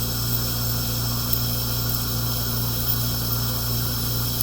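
Steady low machine hum with an even hiss over it and a couple of faint ticks.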